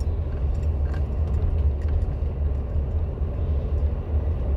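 Steady low rumble of a car driving slowly along a street, engine and tyre noise heard from inside the car.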